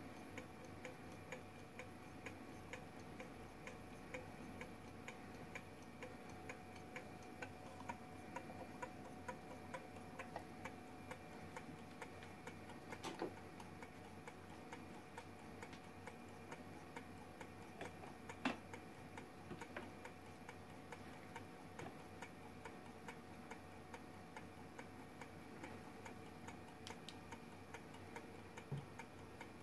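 Coffee-cup gamma Stirling engine running on the heat of hot water, its piston, crank and displacer linkage making faint, evenly spaced clicks with each turn of the flywheel. A few slightly louder clicks stand out along the way.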